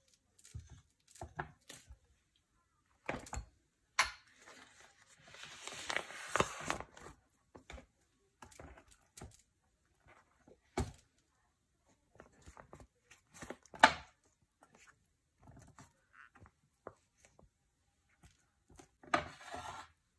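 Spatula scraping chocolate mousse from a bowl into a silicone piping bag, with a stretch of rustling and scraping about four seconds in. Scattered light clicks and knocks of utensils and glasses on a table, the sharpest knock about fourteen seconds in.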